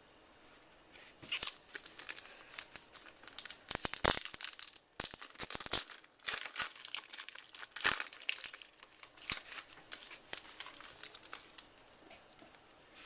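A baseball card pack's wrapper being torn open and crinkled by hand, with irregular crackling from about a second in until near the end.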